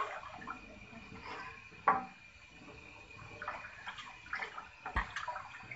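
Wooden spoon stirring a thin, watery gram-flour and yogurt kadhi batter in a steel pot, not yet boiling. The liquid sloshes, and the spoon knocks sharply against the pot about two seconds in and again near the end.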